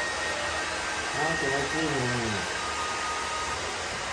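A hand-held hair dryer blowing steadily into a dog's wet coat: an even rushing whir with a faint high whine that shifts slightly in pitch. About a second in, a short voice-like sound rises and falls in pitch for about a second.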